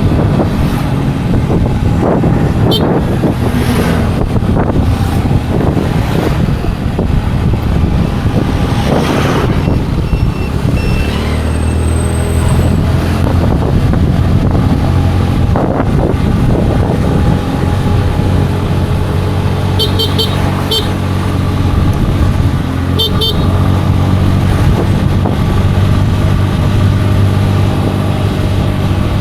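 Scooter engine running steadily under way, with road and traffic noise. Twice, about two-thirds of the way through, a vehicle horn gives a few quick short beeps.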